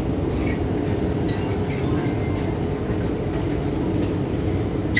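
MTR Kwun Tong Line Q-Train metro train running, heard from inside the passenger car: a steady rumble of wheels and running gear with a steady hum.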